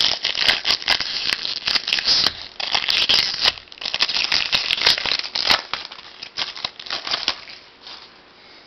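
Foil wrapper of a trading-card pack crinkling and tearing as it is opened and handled close to the microphone, a dense crackle with many sharp clicks that dies down about seven and a half seconds in.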